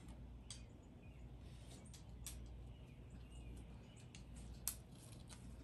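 Near silence: quiet outdoor ambience with a low steady hum, faint bird chirps and a scattering of small clicks, one sharper click near the end.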